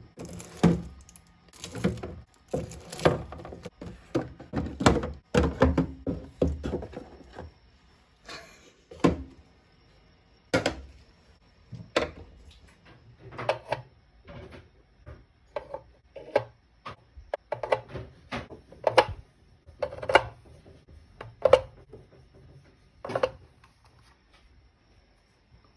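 Kitchen handling sounds: a busy clatter of knocks at first, then separate thunks about a second apart, some with a short ring, as containers and fruit are picked up and set down on hard surfaces.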